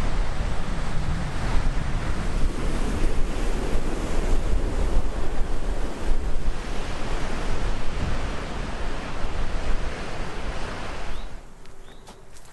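Wind buffeting the microphone over a rushing wash of water, a dense steady roar heaviest in the low end. About eleven seconds in it cuts off abruptly to a much quieter background with a couple of faint chirps.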